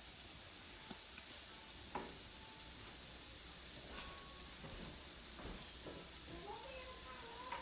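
Chicken breast frying in a pan: a faint, steady sizzle, with a few light clicks scattered through it.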